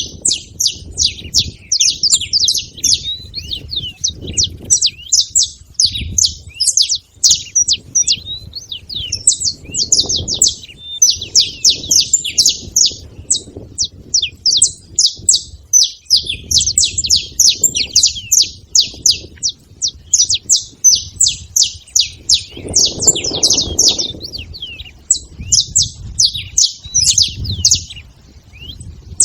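Several saffron finches chirping together in a dense, unbroken stream of short, high chirps and song notes, over a low rumble.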